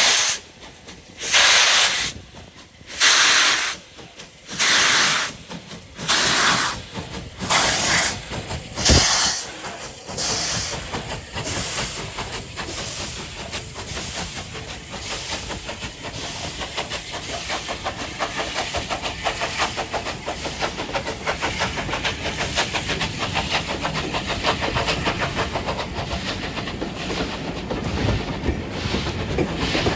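Steam locomotive starting away: loud exhaust chuffs, at first about one and a half seconds apart, quickening over the first ten seconds into a rapid, steady beat as it gathers speed.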